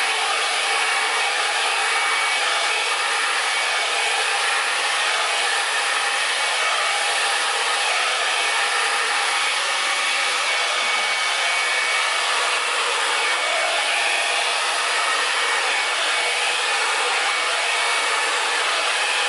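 Hair dryer blowing steadily with a faint whine, its air stream pushing wet acrylic paint across the canvas in a Dutch pour.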